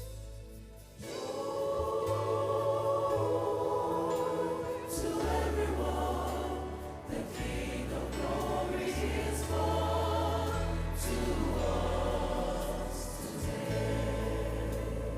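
Gospel choir singing over instrumental backing with long held bass notes, coming in about a second in.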